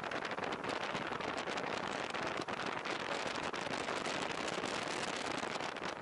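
Steady crackling hiss of wind and wet-road noise on a Sony X3000 action camera's microphone while riding. It is full of tiny rapid crackles, typical of the microphone fault the uploader notes, which makes a tearing sound.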